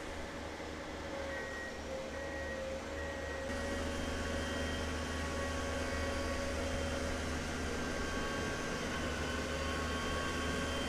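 Diesel locomotive engine running steadily, a low hum with several steady tones above it; it grows louder about three and a half seconds in.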